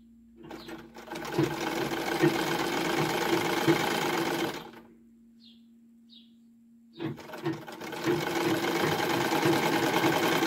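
Gloria sewing machine stitching in two runs, each about four seconds long, with a pause of about two seconds between them.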